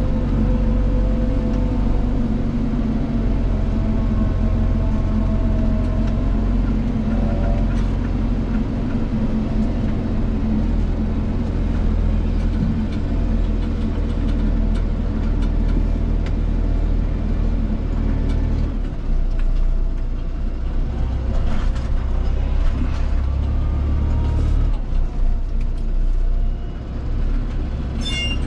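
Diesel engine of a forestry machine running steadily under work, its low note changing about two-thirds of the way through and again a few seconds later.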